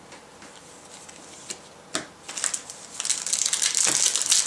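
Plastic booster pack wrappers of Yu-Gi-Oh trading cards crinkling as they are handled and torn open, with a few light ticks of card handling. It is faint at first and turns into louder, dense crinkling about three seconds in.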